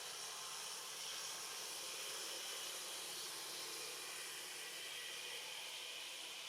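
A steady, even hiss, mostly high-pitched, with no distinct events.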